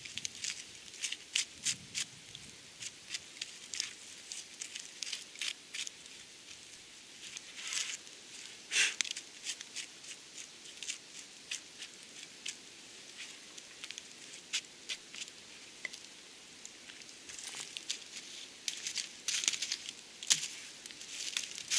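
Baked clay crust being cracked and crumbled off a clay-baked piece of meat by gloved hands: irregular sharp crackles and clicks, with a louder crack about nine seconds in and a busier run of crackling near the end.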